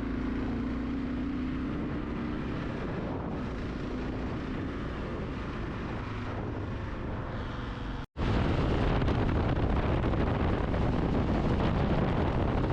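Motorcycle riding at road speed: steady engine hum under wind rushing over the microphone. The sound drops out for an instant about eight seconds in and comes back louder.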